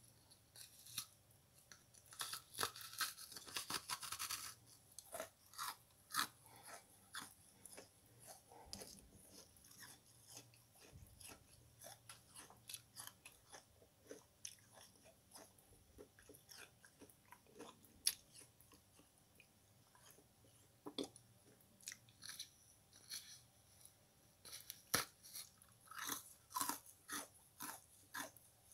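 Sponge crunching and crackling: many short, irregular crisp crackles, densest about two to four seconds in and again near the end.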